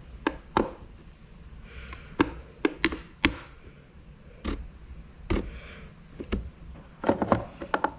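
Sharp plastic clicks and ticks as a plastic pry tool works around a BMW F30 side-mirror cap, unsnapping it from its plastic clip hinges: a dozen or so clicks at uneven intervals, a quick cluster of several near the end.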